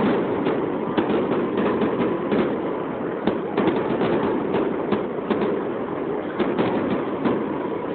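Fireworks show: aerial shells bursting in quick succession, a continual irregular string of sharp pops and bangs, several a second.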